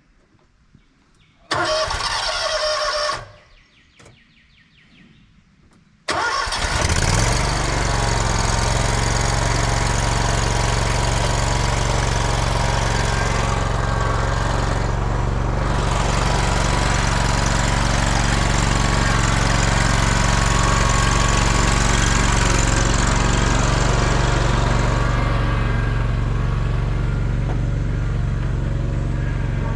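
John Deere zero-turn mower engine being started: a first spell of cranking of about two seconds that does not catch, then about six seconds in it turns over, fires and settles into a steady run.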